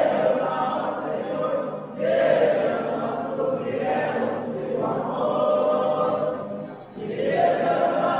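A folia do Divino group of singers singing a hymn together in chorus, in long phrases with short breaks about two seconds in and near the end, where a new phrase begins on a rising note.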